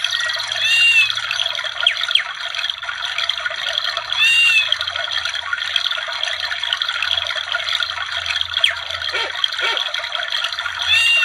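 A sound-effect ringtone, an MMF file played through the small speaker of a Samsung SGH-X497 phone. It is a dense, noisy texture rather than a tune, with a few short chirps over it.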